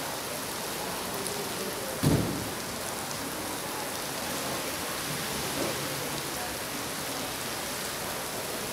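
Heavy rain pouring down steadily on parked cars, with a single short low thump about two seconds in.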